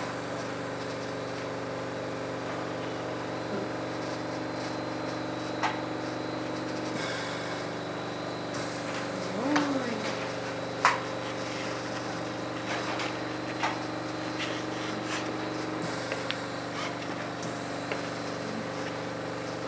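Steady hum and hiss from a glass lampworking bench, its torch burning and the ventilation running, with a few faint light clicks of glass or tools.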